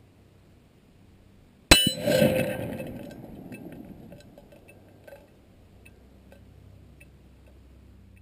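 A rifle bullet strikes a hanging steel plate target with one sharp clang about two seconds in. The plate rings and fades over a few seconds, with a few light clinks from its chains as it swings.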